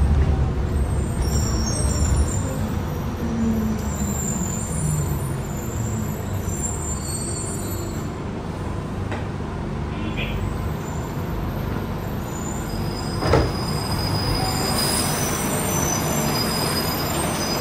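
Interior running noise of an Adtranz C801 rubber-tyred light-rail car: a steady rumble, heaviest at first and then easing as the train slows into the station. There is a single sharp knock about 13 seconds in.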